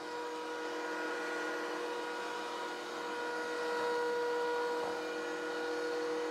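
DeWalt DW735 thickness planer running, with the shop dust collector sucking through its hose: a steady machine whine of several held tones over a rushing noise, swelling slightly about four seconds in.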